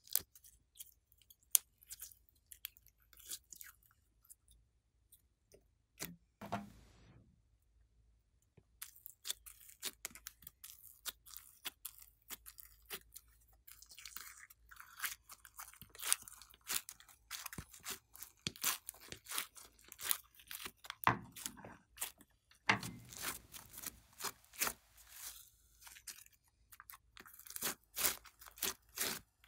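Slime being squeezed, stretched and folded by hand, giving many small crackling clicks and pops, sparse at first and dense from about a third of the way in. Two duller knocks come in, about a fifth of the way through and again about three-quarters through.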